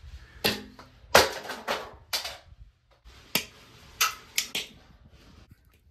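Tin snips and pliers cutting and working ceiling electrical wires: a series of sharp metal clicks and clacks, about eight, spaced irregularly.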